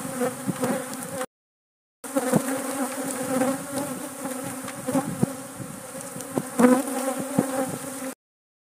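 A swarm of defensive honeybees buzzing around their hive: a steady, dense hum, with single bees buzzing close past the microphone now and then. The sound drops out for a moment about a second in and cuts off near the end.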